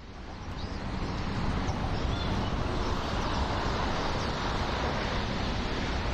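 Steady roar of city street traffic, fading in over the first second, with a few faint high chirps in the first two seconds.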